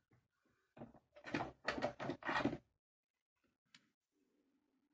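Small metal handling sounds as a Torx screwdriver bit is fitted to a folding knife's screw: a run of short scraping clicks, then one sharp click about a second before the end.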